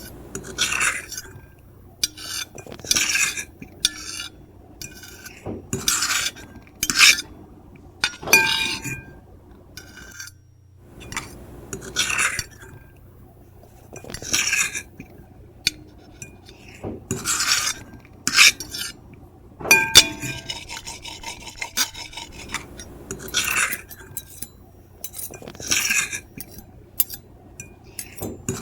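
Metal fork and knife scraping and scratching across a plate in repeated short strokes, about one every second or two, with an occasional clink of cutlery on the plate.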